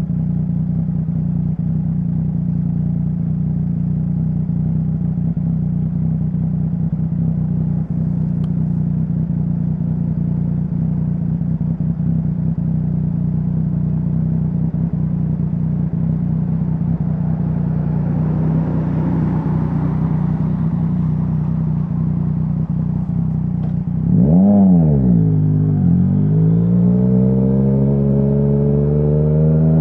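Yamaha Tracer 900's inline-three engine through a Dominator HP3 full exhaust, idling steadily for most of the stretch. Near the end it is blipped once, sharply up and back down, then revs climb steadily as the bike pulls away.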